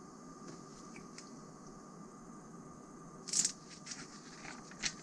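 Pages of a glossy magazine being handled and turned: one short paper swish about three seconds in, then a few lighter crinkles near the end.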